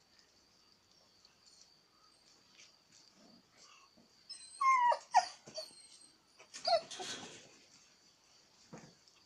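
Puppies yelping and whimpering in two short bouts of high, bending cries, one about halfway through and another a couple of seconds later.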